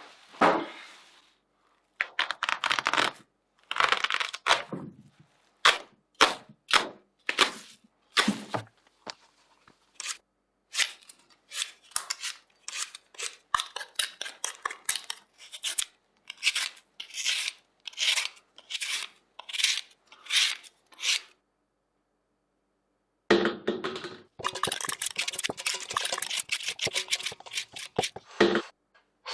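A hand vegetable peeler scraping the skin off raw potatoes in short, quick strokes, one or two a second, with a brief pause in the middle. Near the end two peelers work at once in a dense run of strokes. A heavy thump right at the start.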